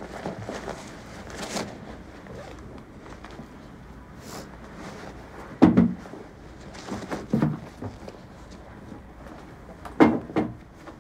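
A few sharp clunks over a steady low hum. The loudest comes about five and a half seconds in, a weaker one follows, and two come close together near the end.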